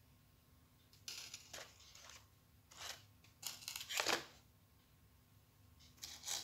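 Stiff folded paper stars rustling and brushing against each other as they are handled and set down on a table, in a few short bursts, the loudest about four seconds in.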